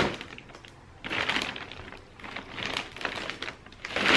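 Plastic poly mailer bag crinkling and rustling in three irregular bursts as a small cardboard box is pulled out of it, with a sharp tap right at the start.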